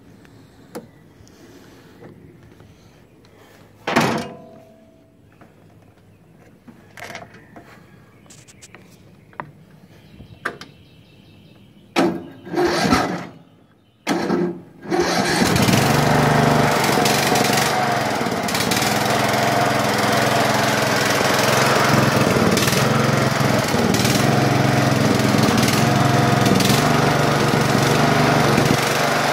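Yard Machines (MTD) riding lawn mower being started: some handling clicks and knocks, then two short bursts of starter cranking. The engine catches about halfway through and runs steadily.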